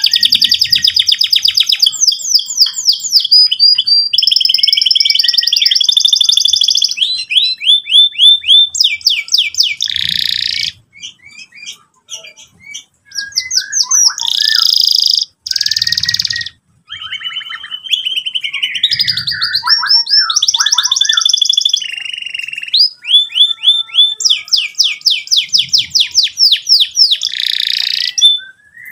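Domestic canary singing a long, fast song of rapid repeated notes and rolling trills, high-pitched, with a couple of short breaks near the middle.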